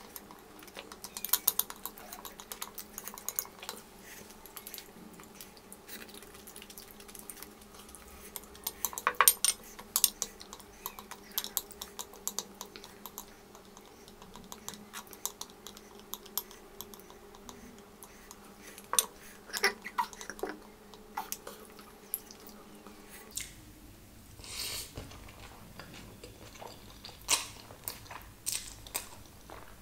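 Close-up eating sounds: chopsticks clicking and scraping against a glass bowl of black bean noodles, mixed with chewing. The clicks are short and irregular, loudest about nine seconds in.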